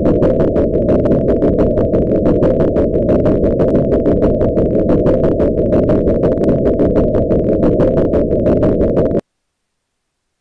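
Loud, low rumbling noise with a regular pulse several times a second, cutting off suddenly about nine seconds in.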